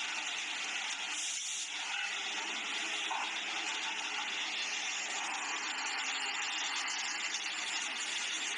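Industrial sewing machines running on a garment factory floor: a steady, unbroken mechanical noise with no pauses.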